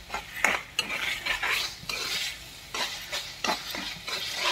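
A spatula stirring and scraping a thick tomato masala around a frying pan, with irregular scrapes and taps against the pan several times a second. Under the strokes the masala sizzles softly in its oil.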